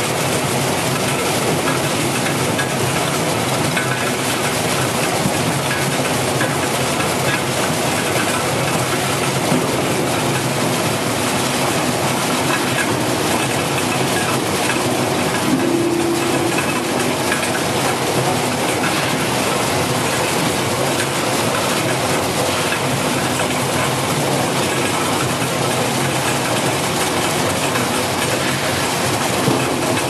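Brush-roller taro peeling and washing machine running: taro corms tumbling and rattling against the rotating brush rollers, a loud, steady mechanical clatter partway through its peeling cycle.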